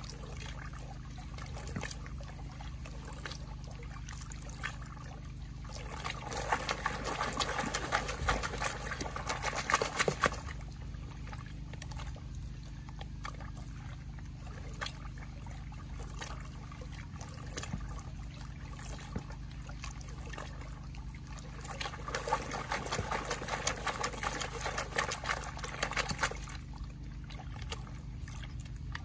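Black gold pan being swirled and dipped in muddy water, sloshing and trickling in two louder stretches, about six seconds in and again past twenty seconds, over a steady low hum.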